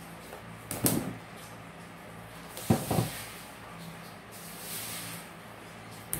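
Workbench handling noises from an old electric fan motor and a pair of pliers: a clunk about a second in, a louder double clunk just under three seconds in, and a short sharp click near the end, over a faint steady low hum.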